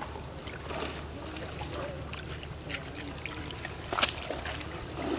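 Water trickling and splashing from a wet cast net being gathered in by a man wading in shallow pond water, with a sharper splash about four seconds in as he steps out.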